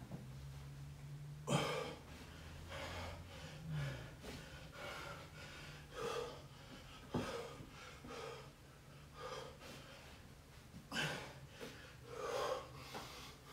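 A person breathing hard during bodyweight exercise (inchworm push-ups), with short gasping breaths every second or so. Two sharp knocks stand out, and a faint steady hum runs underneath.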